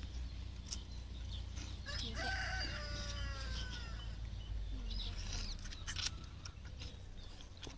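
A rooster crowing once, about two seconds in: a single drawn-out call lasting about a second and a half that falls in pitch at the end. Scattered sharp clicks sound around it.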